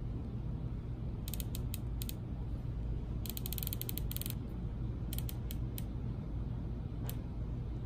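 Elevation turret of a Steiner M7Xi 4-28x56 riflescope turned by hand, giving sharp detent clicks. There are a few single clicks, then a fast run of clicks about three seconds in, then more single clicks spaced apart, over a steady low hum.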